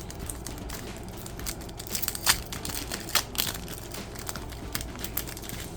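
Trading card pack wrapper crinkling and tearing as it is opened by hand: a run of sharp crackles, with louder snaps a little over two seconds and about three seconds in.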